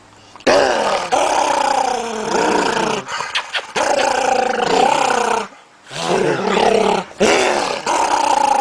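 Dog growling loudly in long, wavering growls, in three stretches with short breaks between them.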